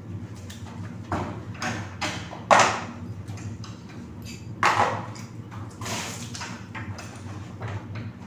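Dishes being washed by hand: water splashing and plastic containers and a metal basin knocking, in a string of short scrubbing and splashing sounds, the loudest about two and a half seconds in and again near five seconds. A steady low hum runs underneath.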